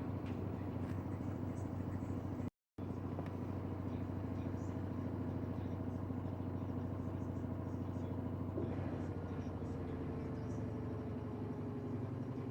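LG washing machine running with a steady motor hum. The sound cuts out for a moment about two and a half seconds in. In the last few seconds a whine comes in and slowly falls in pitch.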